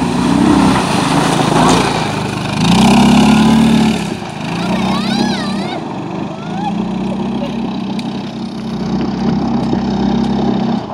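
Kuba M550 ATV engine running under throttle as it ploughs through shallow river water, with spray hissing off the wheels. The engine note rises and falls, loudest about three seconds in, then steadies as the machine pulls away.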